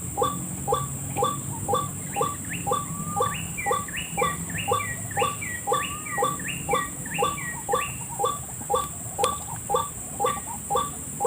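White-breasted waterhen (ruak-ruak) calls played as a trapping lure: a short croaking note repeated evenly about three times a second. From about two seconds in until past the middle, a second series of higher, falling notes runs alongside it, over a steady high hiss.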